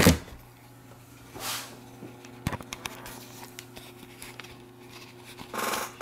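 Handling noise from the recording camera being picked up and moved: a brief rustle, a sharp click about two and a half seconds in, and a louder scuffing near the end, over a low steady hum.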